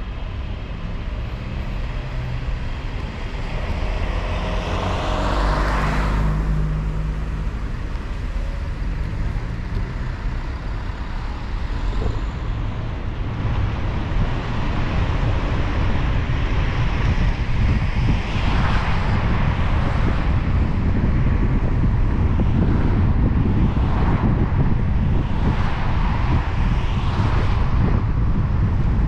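Car driving on a rain-wet road: steady low road rumble and tyre hiss. About five seconds in, another vehicle passes with a swelling swish and an engine note that falls in pitch. Several shorter swishes of passing traffic follow in the second half.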